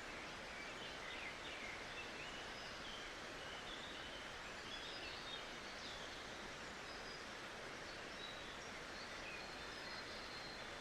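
Steady rush of flowing river water, with small birds chirping faintly and intermittently over it.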